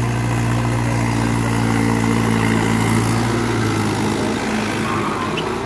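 Mahindra 575 DI XP Plus tractor's four-cylinder diesel engine running steadily with a deep hum while driving a rotavator through the soil, easing off slightly near the end.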